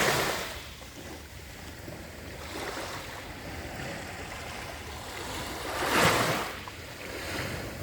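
Sea waves washing onto the shore: one fades away just after the start, and a louder one surges in about six seconds in.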